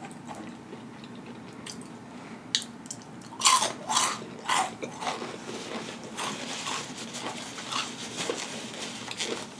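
Close-up chewing of crunchy fried onion rings: a run of loud crunches about two and a half to five seconds in, then softer, steady chewing.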